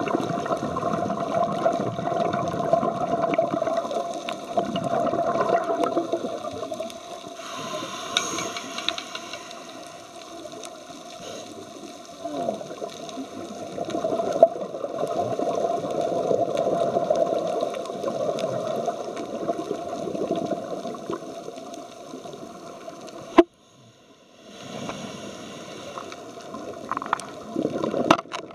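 Underwater sound of a scuba diver breathing through a regulator: long bursts of rushing, bubbling exhalation with quieter stretches between them. The sound drops out abruptly for about a second near the end.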